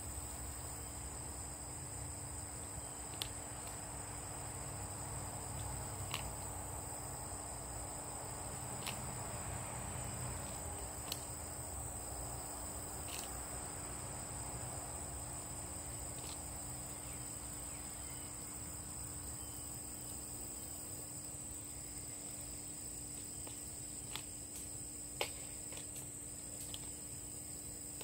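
Steady, high-pitched insect chorus, with a few faint sharp clicks scattered through it.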